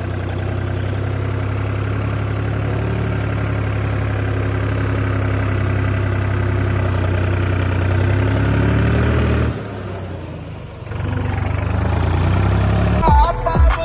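Tractor diesel engine running steadily, its pitch rising slightly before the sound drops away abruptly for about a second and a half and then returns.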